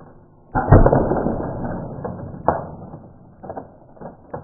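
Paintball gun fired at an egg: a sudden loud shot a little after half a second in that dies away over about a second and a half, followed by a few sharp knocks.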